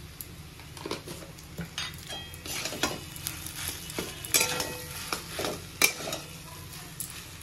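Steel spatula stirring and scraping spiced mashed potato filling around a steel kadhai, with irregular clinks and scrapes of metal on metal.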